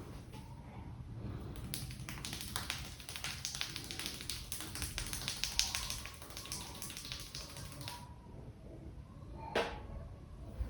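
Rapid, rhythmic tapping of hands on a head during an Indian head massage, a quick run of light slaps that stops about three-quarters of the way through. One short sharp sound follows near the end.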